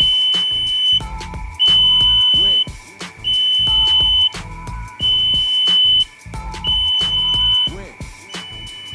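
Smoke detector alarm sounding: a loud, high, steady beep about a second long, repeating about six times with short gaps, the alarm triggered. Background music with a beat plays underneath.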